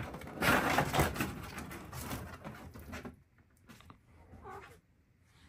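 Rustling and tapping for about three seconds, then quieter, with a faint short cat call near the end.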